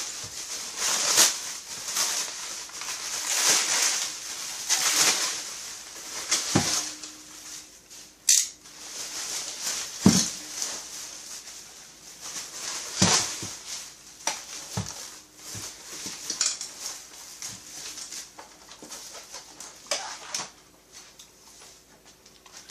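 Rustling of packaging as kit parts are unwrapped and handled, with a few sharp knocks of parts being set down.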